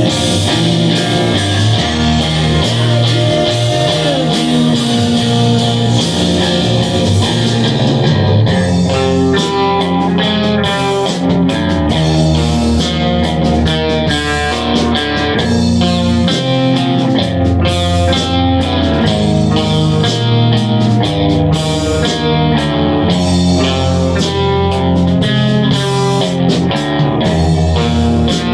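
A live band playing loud guitar music with electric guitar and drum kit. It opens with a sustained, ringing wash of chords, and about eight seconds in a steady drum beat with moving guitar lines takes over.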